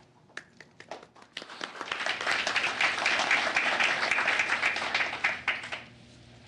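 A small group of people applauding. A few scattered claps at first build to steady applause for about four seconds, then stop abruptly near the end.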